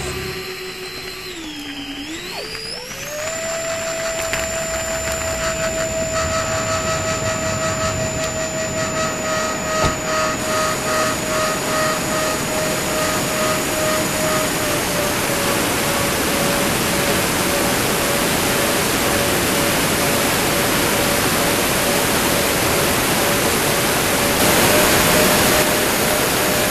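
Radio-controlled model jet's motors whining, dipping and then rising in pitch about two seconds in before holding a steady tone. A steady rush of air grows beneath the whine, heard from a camera mounted on the aircraft in flight.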